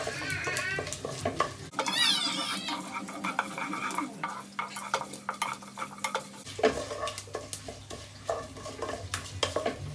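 Wooden spatula stirring and scraping around a nonstick pot, with frequent small knocks against the pot, while mustard seeds, curry leaves, dried red chillies and fenugreek seeds fry in sesame oil on a low flame with a light sizzle.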